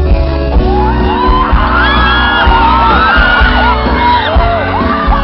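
Loud music with a steady bass, with several voices whooping and shouting over it in rising and falling cries.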